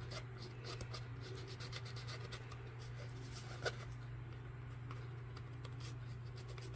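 Makeup sponge dabbing and rubbing ink along the edge of a paper tag: faint, irregular scratchy strokes, with one sharper tap a little past halfway. A steady low hum runs underneath.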